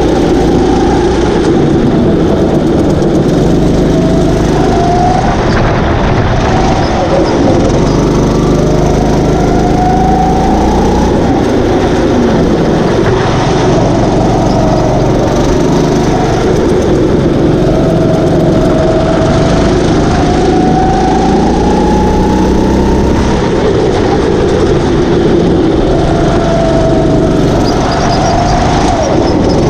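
Kart engine running hard, its pitch climbing in several long rises as it accelerates and dropping back as it slows, over heavy rough rattling and wind noise.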